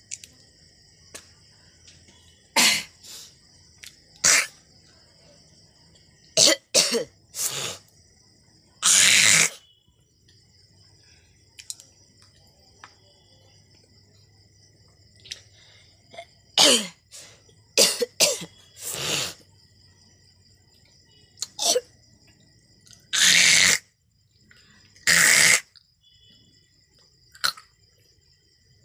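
A person coughing: about fifteen separate coughs and short bouts with pauses between, two of them drawn out to about a second, and a quiet stretch of several seconds in the middle.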